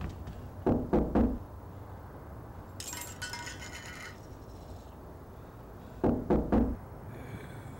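Knocking on a door: three quick knocks, then after a pause of about five seconds another three. A short, fainter, bright ringing sound comes in between.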